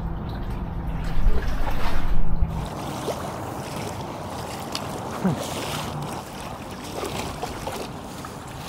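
Low steady hum of a boat's motor, which cuts off about two and a half seconds in; after it, a steady rushing noise.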